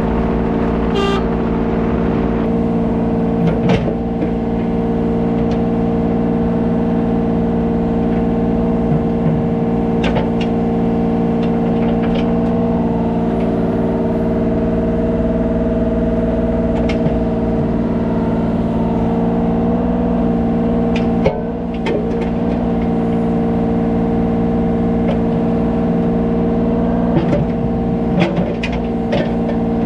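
Diesel engine of a Kubota 33 mini excavator running steadily, with a few sharp metallic clanks now and then.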